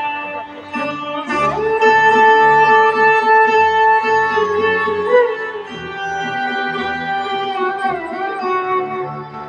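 Instrumental music played over the loudspeakers of a light and sound show, with long held notes that bend in pitch. It dips in level near the end.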